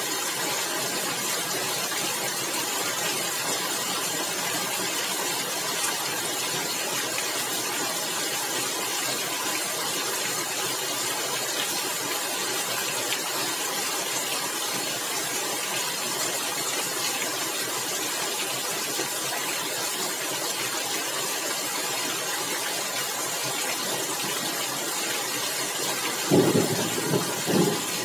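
Steady rain falling on a tiled roof. A brief louder rumble comes in a few pulses near the end.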